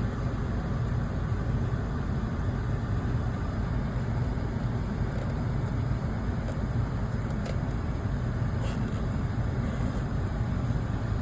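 Steady low road and engine noise, as heard inside a moving car.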